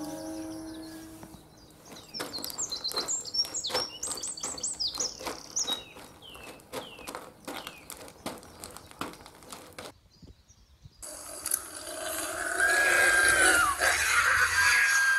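A howl fades out at the start. Then birds chirp in quick high downward chirps over rapid clicking taps. After a short break, a loud rushing noise with a wavering whistle-like tone comes in near the end.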